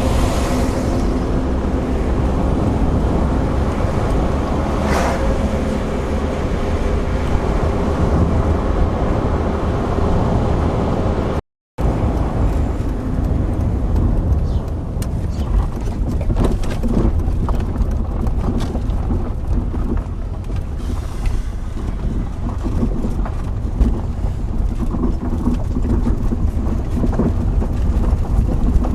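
Car driving, a steady low rumble of engine and road noise with some wind on the microphone. The sound cuts out completely for a moment a little before halfway, then goes on with more small knocks and rattles.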